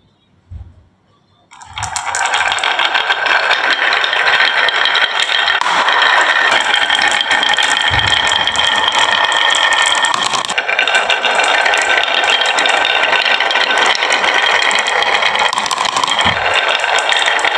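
Many marbles rolling and clattering down a marble run track in a dense, continuous rattle of tiny clicks, starting about two seconds in after a few single knocks.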